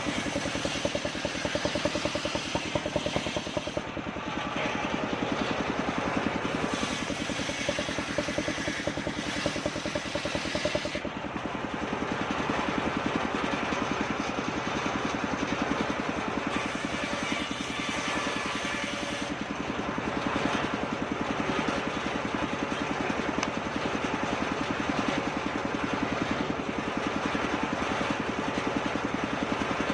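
Circular sawing machine running steadily with a fast, even pulse, cutting kapok wood. The high part of the sound fades and returns a few times.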